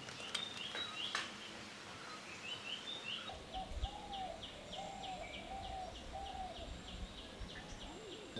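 Birds calling: a long run of short, high, falling chirps repeated about four times a second. For a couple of seconds in the middle it is joined by a lower series of short, arched whistles. Both are faint, over a steady background hiss.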